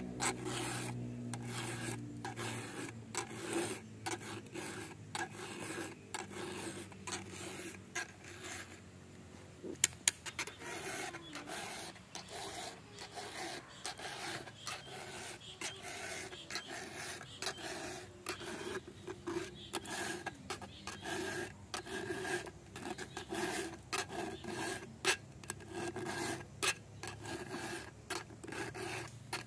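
A round chainsaw file in a wooden handle rasps across the cutters of a chainsaw chain in steady repeated strokes, hand-sharpening the chain. The strokes ease off briefly about a third of the way through, and two sharp clicks come at about ten seconds.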